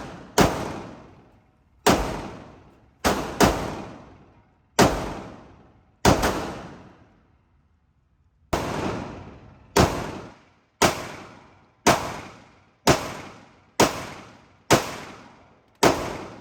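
Gunshots fired one after another, about one a second, roughly fourteen in all with a short pause midway; each crack echoes and dies away before the next.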